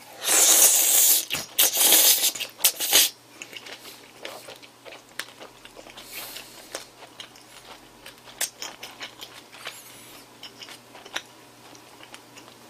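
A person slurping in a mouthful of buckwheat noodles wrapped with pork and spicy raw-fish salad, two loud slurps in the first three seconds, then chewing with many small crunches and wet clicks.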